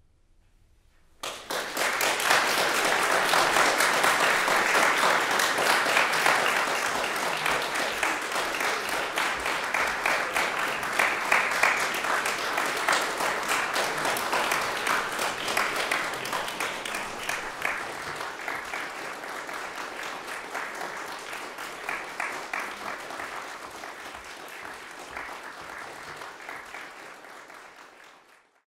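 Audience applauding, starting suddenly about a second in, densest at first and slowly thinning out, then fading away near the end.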